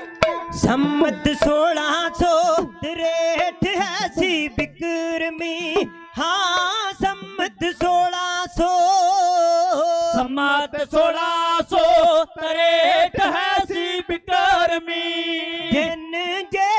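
Male voices singing a Punjabi dhadi ballad with wavering, ornamented lines, accompanied by a bowed sarangi holding a steady pitch and frequent sharp strokes of dhadd hourglass drums.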